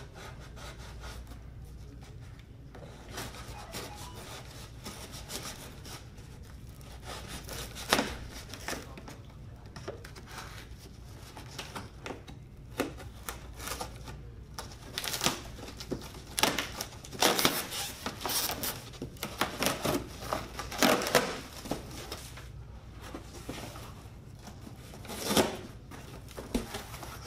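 A utility knife cutting packing tape and cardboard on a large shipping box, with irregular scraping and tearing strokes that come thick and fast in the middle. Hands pick at the tape and rub over the cardboard.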